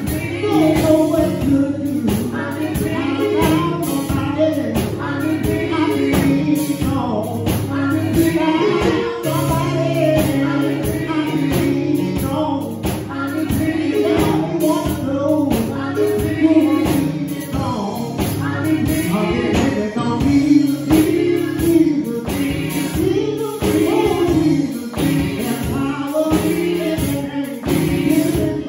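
Gospel music with a choir singing over a steady beat and tambourine.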